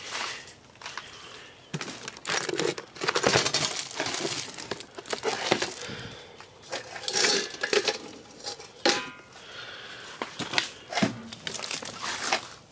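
Someone rummaging through stored tools and metal objects: irregular rustling, clinks and knocks as things are picked up and moved about, with a short metallic scrape about nine seconds in.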